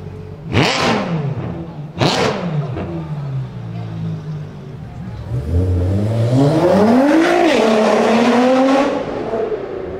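Ferrari F12 Berlinetta's V12 revved hard twice, about a second and a half apart, each blip snapping up sharply and falling back to idle. In the second half an engine revs up again, rising over about two seconds and staying loud until near the end.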